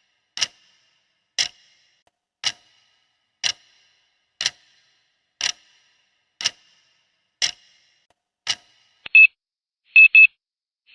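Countdown timer ticking once a second, followed near the end by a loud electronic alarm beeping, a beep or quick pair of beeps about once a second, signalling that the countdown is over.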